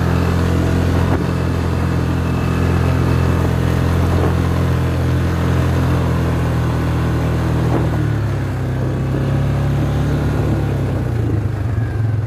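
ATV engine running steadily as the quad is ridden along a dirt track, heard from on board. Its note drops a little about eight seconds in.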